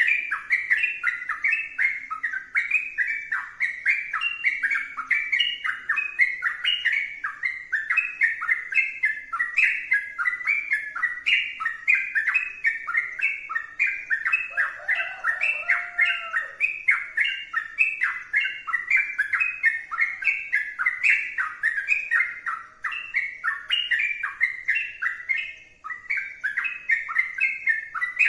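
Yellow-vented bulbul (trucukan) singing non-stop in a long bout, a steady run of short, quickly repeated chirping notes, roughly three a second.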